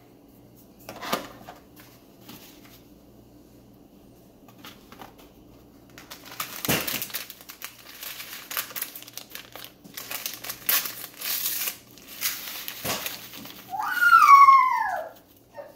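Crinkling and rustling of a food pouch being handled and torn open, a run of crackly strokes through the middle. Near the end a loud squeak falls steadily in pitch.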